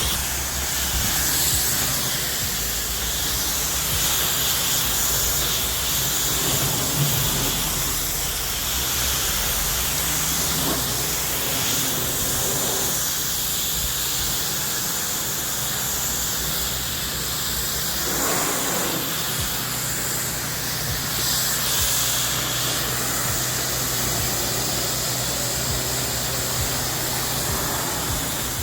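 Pressure washer spraying: a steady hiss of water from the spray wand over the low, even hum of the machine's engine.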